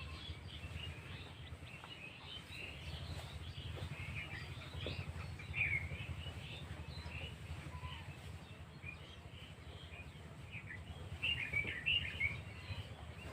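Small birds chirping and twittering in short scattered calls, over a steady low rumble.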